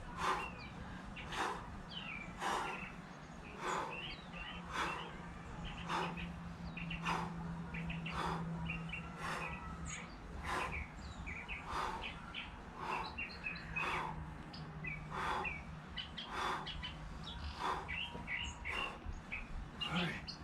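Small birds chirping and twittering throughout, over a regular short swishing stroke about every second and a quarter and a steady low hum.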